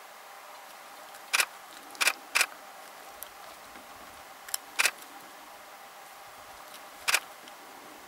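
Single-lens reflex camera shutter firing about five times at irregular intervals, each a sharp doubled click, over a faint steady hum.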